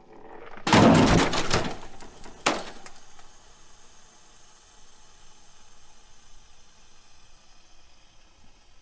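Sound effects for an animated logo: a short swell, then a loud crash with a clatter of several quick knocks about a second in, and another sharp hit around two and a half seconds. After that only a faint hiss remains.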